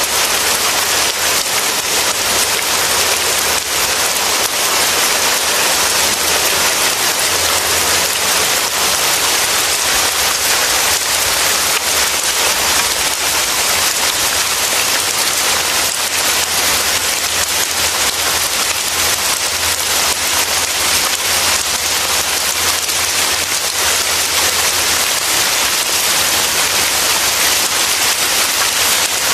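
Heavy rain falling steadily, an even, unbroken hiss with no gaps or thunder claps.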